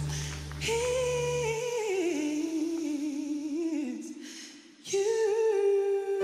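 A woman singing solo in a slow, free-tempo passage, her melody gliding over sparse low backing that drops away after about a second and a half. After a short pause about four seconds in she holds one long note.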